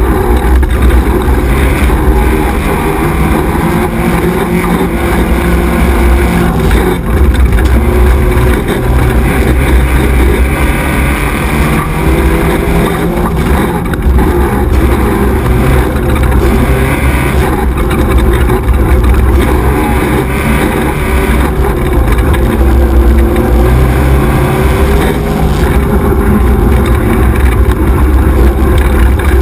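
XY 1100R 4x4 buggy's engine running hard as it races over a dirt track, the pitch rising and falling as the driver accelerates and lets off. A steady rush of wind and ground noise runs under the engine on the onboard camera.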